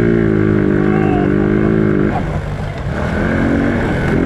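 Small vehicle engine revving up and holding high revs for about two seconds, easing off, then revving up again near the end.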